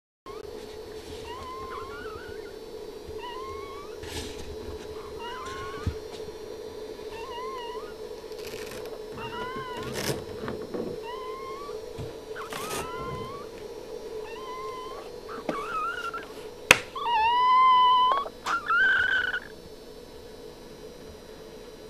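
Newborn Boston Terrier puppies crying with short, high, mewing squeaks every second or two, the loudest and longest cries near the end, over a steady hum. A sharp click sounds just before the loudest cries.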